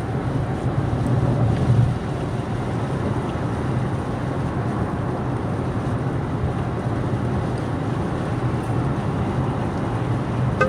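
Steady road noise of a car driving on a highway: a constant low rumble of tyres and engine.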